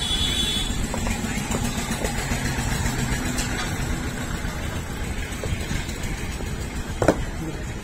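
A steady low rumble under light handling of a cardboard shipping box and a phone box, with faint clicks and one sharp knock about seven seconds in.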